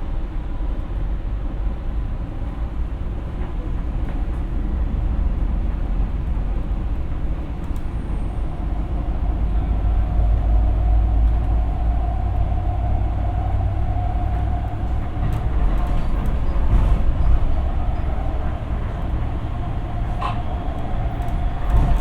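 Siemens P2000 light-rail car running between stations, heard from on board: a steady low rumble of wheels on rail, with a steady whine coming in about halfway through.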